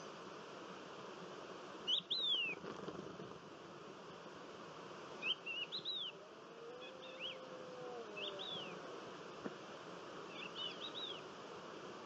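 Small birds calling at dawn: short, arched chirps in small groups of two to four, spread through the clip, over a steady background hiss. A faint, drawn-out low tone rises and falls once in the middle.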